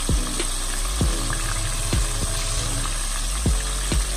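Floured lobster tails deep-frying in a pot of hot oil: a steady, dense sizzle of bubbling oil. Regular low thumps come about once a second underneath it.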